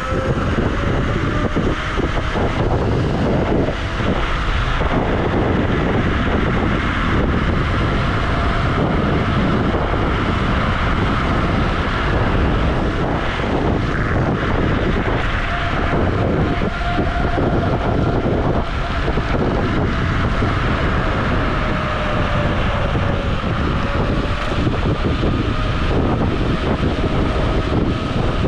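Wolf Warrior dual-motor electric scooter riding at speed: a steady electric motor whine, its pitch sagging a little and recovering, under heavy wind rush on the microphone.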